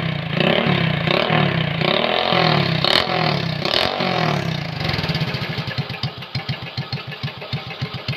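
Honda Grand's four-stroke single-cylinder engine running through an open Suzuki Satria FU header pipe with no silencer, revved in quick throttle blips about once a second. About five seconds in it drops to a slow, uneven idle of separate loud exhaust pops that fade.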